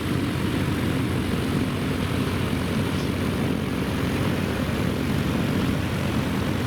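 Propeller-driven light aircraft's engine and propeller running steadily close by.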